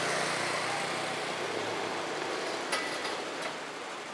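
Street traffic noise with a motor scooter passing close by. Its engine hum fades away over the first couple of seconds, and two short clicks come near the end.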